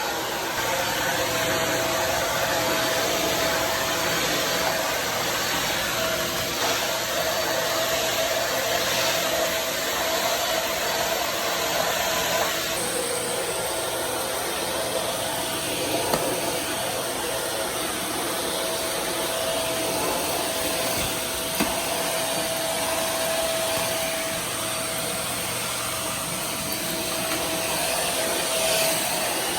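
Imarflex Bagless Max 690 W cyclone handheld vacuum cleaner running steadily with a constant whine, its tone shifting slightly about thirteen seconds in.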